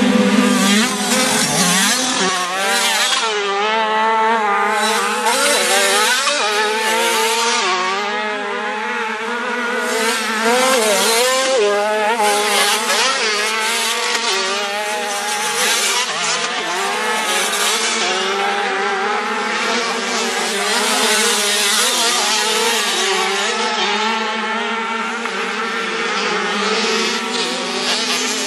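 Several 50cc two-stroke motocross bikes racing together. Their engines overlap, each one constantly rising and falling in pitch as the riders open and close the throttle.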